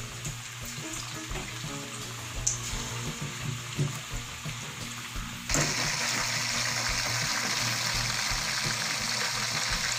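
Marinated chicken pieces deep-frying in hot oil, a steady sizzling and bubbling that suddenly turns louder and hissier about five and a half seconds in.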